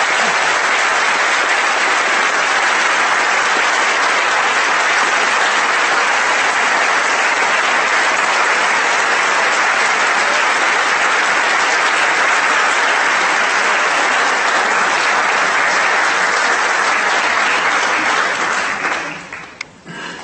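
A large audience applauding steadily in a hall for about eighteen seconds, then the clapping dies away near the end.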